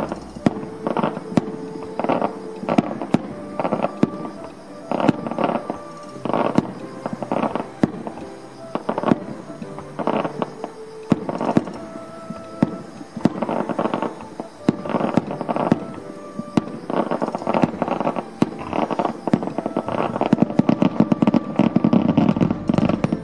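Aerial fireworks shells bursting in repeated bangs, which come thick and loud near the end as many shells burst together. Music plays alongside.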